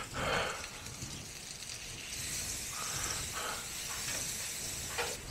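Butter sizzling as it is spread with a spatula across a hot griddle plate, a steady hiss that comes up about two seconds in, with a few soft scraping and handling sounds.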